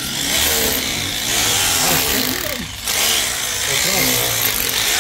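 Sawmill machinery running loudly, with men's voices calling over the noise; the noise dips briefly a little past halfway.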